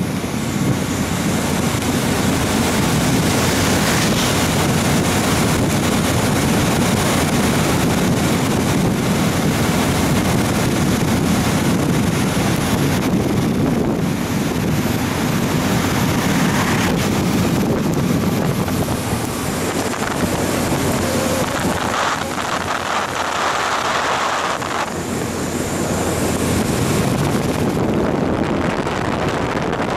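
Loud, steady wind noise buffeting the microphone over a low rumble.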